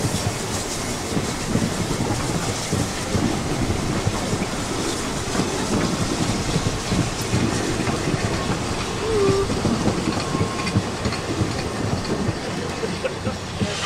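A 750 mm narrow-gauge steam train running, its wagons rolling and clattering steadily along the track.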